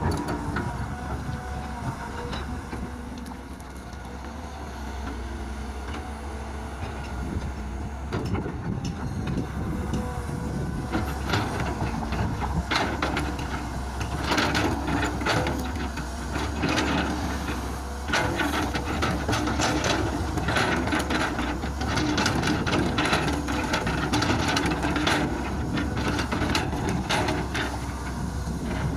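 A Kobelco hydraulic excavator's diesel engine runs steadily while its steel bucket digs and scrapes through rocky soil. From about eleven seconds in the sound gets louder, with repeated clatter and scraping of stones and clods against the bucket.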